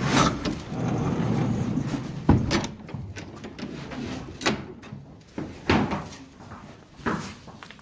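Knocks and clunks in a horse barn, like a stall door or gate: a rumbling scuffle for about two seconds, then four separate sharp knocks spread over the rest.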